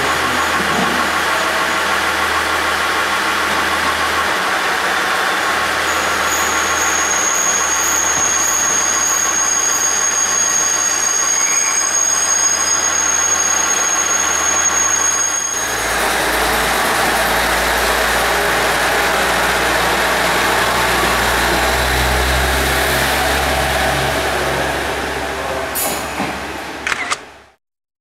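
KiHa 40-series diesel railcar pulling into a station, its diesel engine running over wheel-on-rail noise, with a high steady squeal for several seconds midway. About halfway through, the sound changes abruptly to a deeper engine rumble, which fades out near the end.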